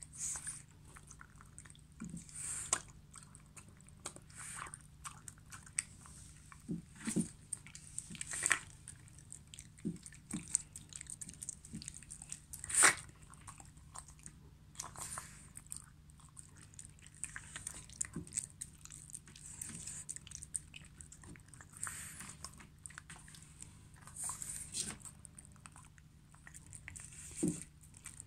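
Shiba Inu eating soft wet meat chunks from a ceramic bowl: irregular licking and chewing, with scattered sharp clicks, the loudest a little under halfway through.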